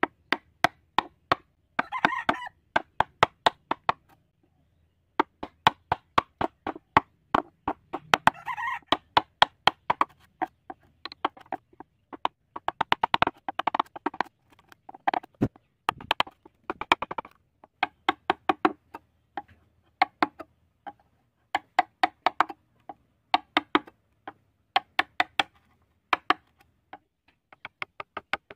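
Wood-carving chisel being struck in rapid sharp taps, often two or three a second, with short rasping scrapes here and there as wood chips split off the board.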